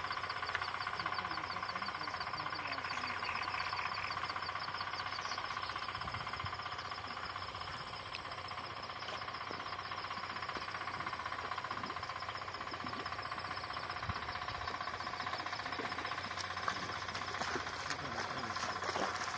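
Steady chorus of frogs and insects from flooded rice paddies: fast pulsing trills at several pitches at once, with a very high trill that comes and goes every second or two.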